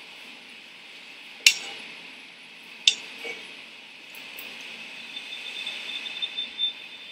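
Spatula working meringue out of a stainless-steel mixer bowl, with two sharp metallic clinks about a second and a half and three seconds in. A faint steady high tone comes in about five seconds in.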